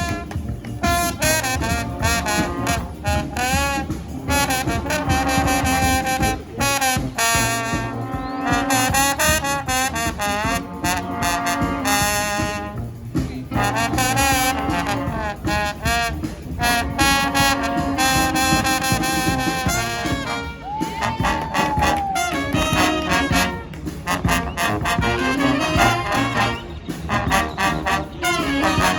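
Street brass band playing a tune live: trumpets and trombones over a steady drum beat, with one high note that arches up and bends down about two-thirds of the way through.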